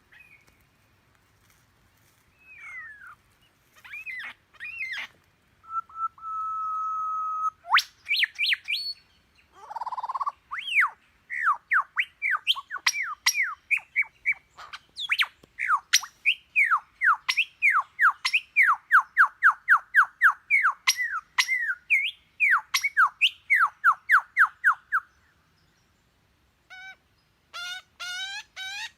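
A series of varied bird calls imitated one after another: scattered whistles and chirps, a held steady whistle, then a long run of quick downward-sweeping chirps about two to three a second. It stops briefly, and a few short calls follow near the end.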